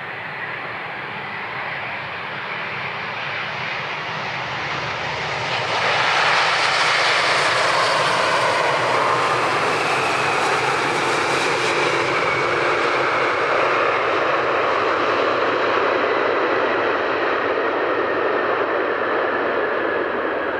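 Airbus A350 airliner's Trent XWB jet engines on landing: the jet noise grows louder as the aircraft closes in, is loudest from about six seconds in, then holds steady with a faint whine slowly falling in pitch as it rolls out along the runway.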